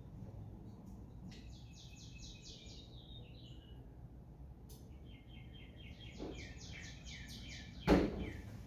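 A songbird singing, two runs of fast repeated high chirps, and a single sharp knock near the end.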